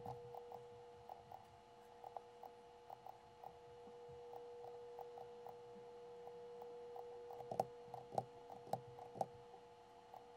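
Faint, irregular clicks of a computer mouse, with four louder clicks between about seven and nine seconds in, over a faint steady hum.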